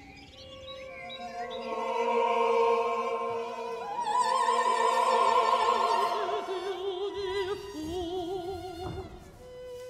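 Opera music: sustained orchestral chords under a voice singing with a wide vibrato, swelling to its loudest about four to six seconds in, then falling to a lower wavering line.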